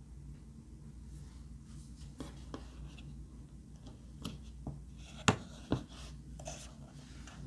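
Hands handling small plastic items (a hand-cream tube, a glitter tube and a small jar) in a plastic tub: scattered light taps and rubbing, with two sharper clicks close together about five seconds in, over a low steady hum.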